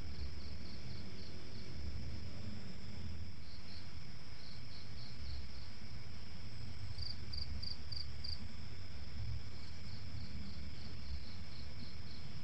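Night insects: a steady high trill with crickets chirping in short runs of about four chirps a second, one louder run about seven seconds in.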